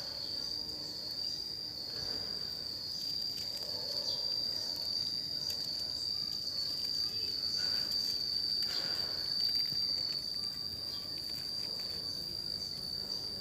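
Cicadas singing: one continuous, steady high-pitched drone.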